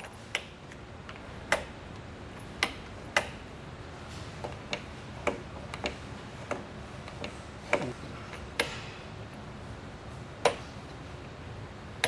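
Bauer Products camper entry door lock being worked by hand: about a dozen sharp, irregularly spaced clicks as the latch and deadbolt are operated, the mechanism working as it should.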